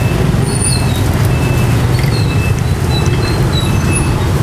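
Steady low rumble of street-side background noise, with faint short high chirps now and then.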